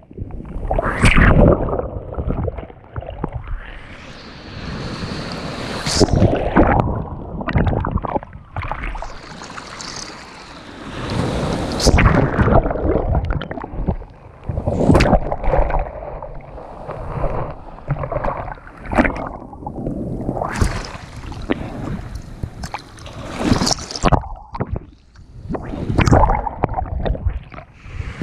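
Sea waves washing in and breaking, a rushing noise that swells and ebbs every few seconds.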